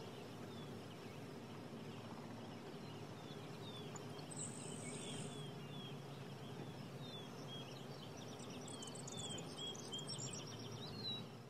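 Faint outdoor ambience: small birds calling with short falling chirps and trills over a steady low background rumble, with a brief high steady note about four seconds in. The sound fades out at the end.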